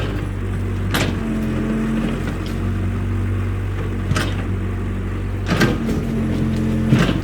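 Excavator's diesel engine running at a steady speed, with four short knocks from the machine working: about a second in, about four seconds in, about five and a half seconds in, and near the end.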